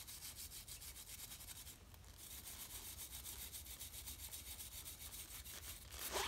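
Hand scraper scraping old gasket residue out of the machined grooves on the flange of a Ford Model A banjo axle housing: a faint run of quick, even scraping strokes, with a short break about two seconds in.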